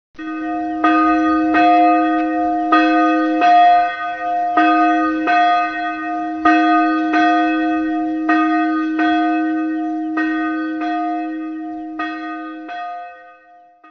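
A single church bell tolling, struck in pairs of strokes with a longer gap between each pair, each stroke ringing on before the next. The ringing dies away near the end.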